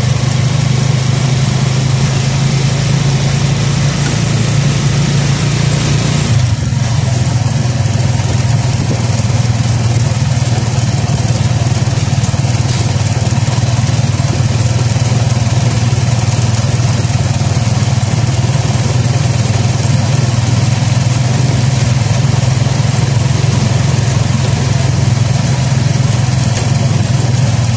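Honda 155 motorcycle engine running at a steady speed while riding, with wind and road noise over it. About six seconds in, the deepest rumble eases off.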